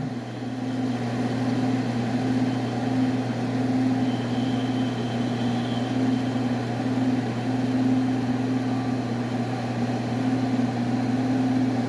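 Air-conditioning condensing unit running with a steady low hum while liquid-line refrigerant is slowly metered through the gauge manifold back into the suction side to even out the pressures. A faint thin whistle sounds for about two seconds in the middle.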